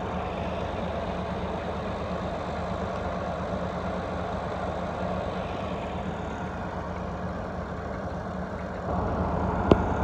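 Massey Ferguson tractor's diesel engine running steadily under load as it pulls a trolley loaded with about 170 sacks through soft sand. It grows louder about nine seconds in, and there is one sharp click just before the end.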